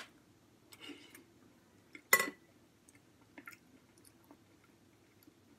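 A person chewing a mouthful of pasta salad with corn, tuna and mayonnaise: soft wet mouth clicks and smacks, with one sharp clink about two seconds in.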